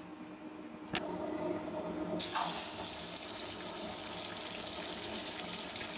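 Two eggs frying in hot oil in a steel pan, sizzling with a steady hiss that turns much louder about two seconds in. A short click comes about a second in.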